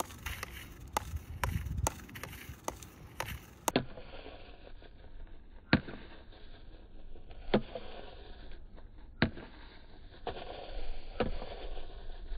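Field hockey stick tapping a hard ball on artificial turf during pulling drills: quick clicks of stick on ball, a few a second, for the first few seconds, then single sharper knocks about every two seconds, over a steady outdoor hiss.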